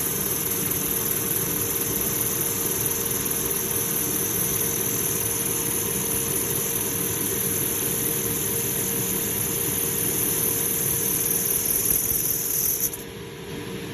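Woodworking machine running steadily, a hum with a high-pitched whine; the whine cuts off suddenly near the end and the sound drops to a quieter steady hum.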